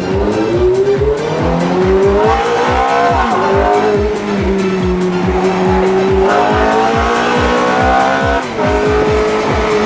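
Ferrari F430's V8 engine at high revs, its pitch climbing over the first couple of seconds and again about six seconds in, then dropping sharply near the end, with tyres squealing in a drift. A steady beat of background music runs underneath.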